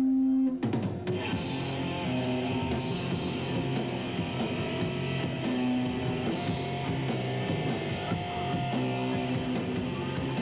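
Rock band playing live: electric guitar chords ringing over bass and drums. A loud held note cuts off about half a second in, and the full band kicks in about a second in.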